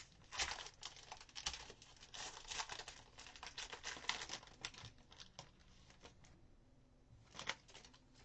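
Wrapper of a Panini Select soccer card pack crinkling and tearing as it is opened, a dense run of crackles for about five seconds, then one brief crinkle near the end.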